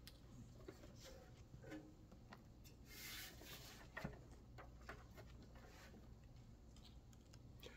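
Near silence: room tone with a low hum and a few faint clicks and rustles, including a soft rustle about three seconds in and a small click about a second later.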